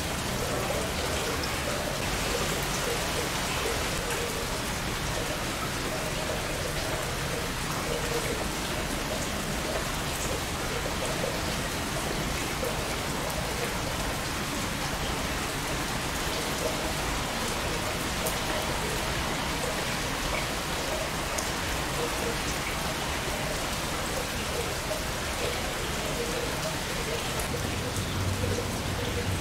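Steady rain falling and pattering on surfaces, an even hiss with no letup.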